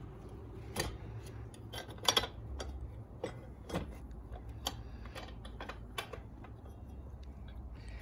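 Light metallic clicks and taps, a dozen or so at uneven intervals, as the chain adjuster plate and adjuster bolt are fitted back by hand onto the swingarm end of a Sinnis Terrain 125 motorcycle. The loudest click comes about two seconds in, over a low steady background rumble.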